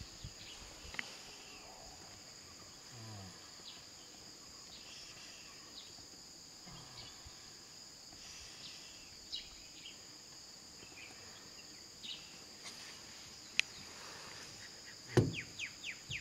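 Steady high-pitched insect chorus of crickets or cicadas, with scattered faint ticks, one sharp click a little before the end, and a short burst of knocks near the end.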